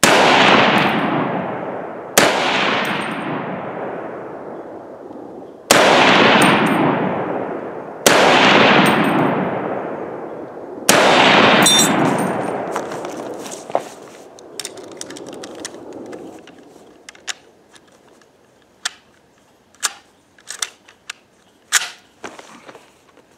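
Five shots from an M1 Garand semi-automatic rifle chambered in .308 Winchester, two to three seconds apart, each with a long rolling echo. A bright metallic ping comes just after the fifth shot, followed by scattered light clicks and knocks from the rifle being handled.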